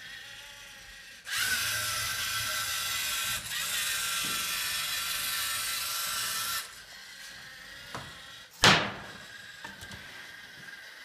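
LEGO Mindstorms EV3 robot's motors and plastic gears whirring as it drives, starting about a second in and stopping after about five seconds. Then a single sharp clack of LEGO plastic a couple of seconds later.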